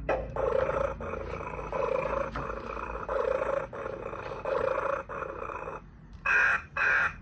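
A repaired electronic children's sound book playing a recorded animal sound clip through its small speaker, in a run of short repeated phrases, with two short louder blasts near the end.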